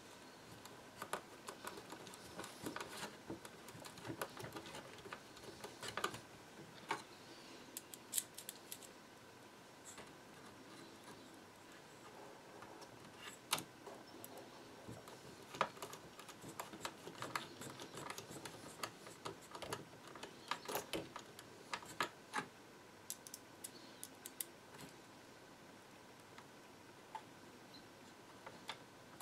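Faint, irregular clicks and taps of a small screwdriver and screws against the plastic body of a DJI Phantom 2 quadcopter as the undertray screws are driven in.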